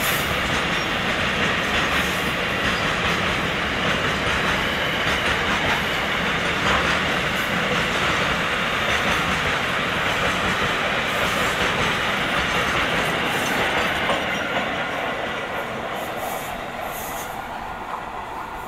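Freight train hauled by a WAG7 electric locomotive running past at speed: a steady rumble and clatter of wheels on the rails, which fades over the last few seconds as the train draws away.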